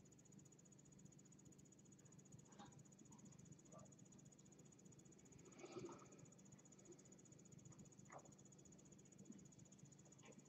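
Near silence: room tone with a faint steady high-pitched whine and a few faint soft taps, one a little louder about six seconds in.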